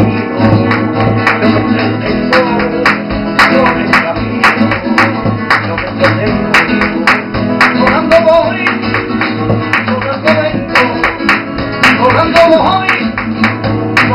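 Flamenco guitar strummed and plucked on a nylon-string Spanish guitar, accompanied throughout by rhythmic flamenco hand-clapping (palmas).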